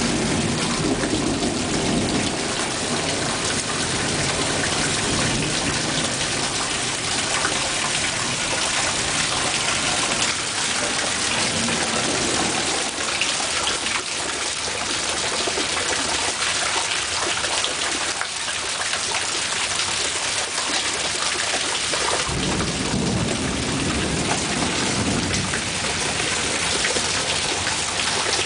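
Heavy thunderstorm rain falling steadily, with low rolling rumbles of thunder at the start and again about three-quarters of the way through.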